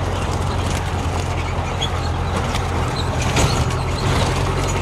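Off-road vehicle engine running at a steady pitch while driving over a rough, stony dirt track, with scattered rattles and knocks from the vehicle jolting over the stones.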